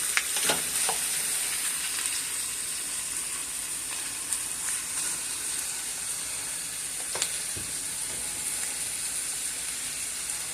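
Cubed beef frying in a pan with butter and onions, a steady sizzle, with a few sharp clicks near the start and one more past the middle.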